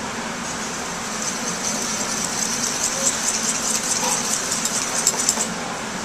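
Coil whisk stirring a thickening dashi sauce in a small copper saucepan: rapid metallic ticking and scraping of the wire against the pan, starting about a second in, getting busier and louder, and stopping near the end. A steady background hum runs underneath.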